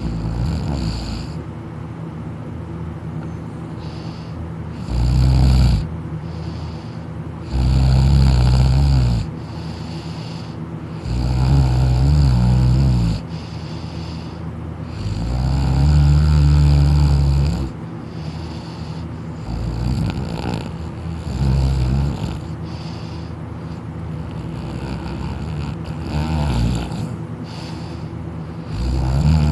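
A person snoring loudly while asleep on their back with the mouth open, a snore every three to four seconds. The four longest and loudest come in the first half; shorter, softer ones follow.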